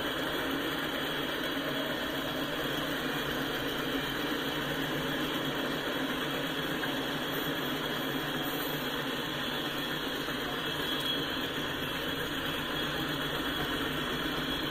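Enclosed autorack freight cars rolling past at speed, a steady rush of steel wheels on rail.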